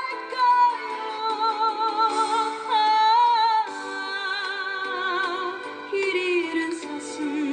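Background music: a slow Korean ballad, its melody moving in held, wavering notes over accompaniment.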